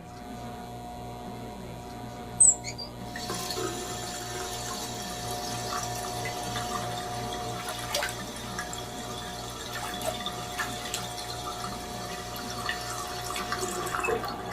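Water running steadily, like a tap into a sink, from about three seconds in, over a low steady hum. About two and a half seconds in there is one sharp, loud, short sound with a quick falling whistle.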